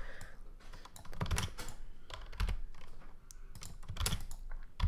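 A few irregular key presses on a computer keyboard, the last one near the end the loudest.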